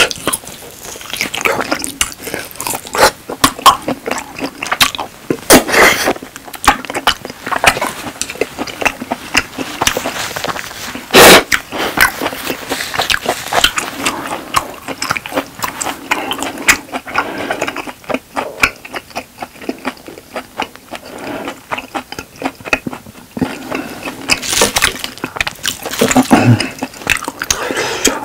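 Close-miked chewing of a piece of steak: wet smacking and clicking mouth sounds, with a louder sharp click about halfway through.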